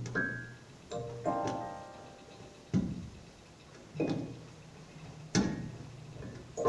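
Sparse keyboard music: single struck notes and chords that ring and fade, with a sharp hit about every second or so.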